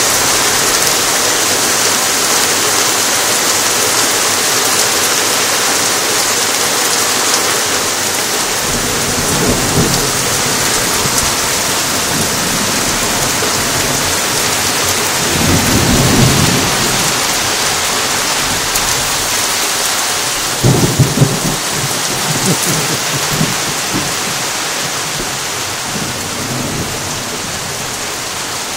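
Heavy rain falling steadily, with thunder rumbling through it: a low roll about ten seconds in, a louder one around sixteen seconds, and the loudest, sharper claps with rumbling just after twenty seconds. The rain eases slightly near the end.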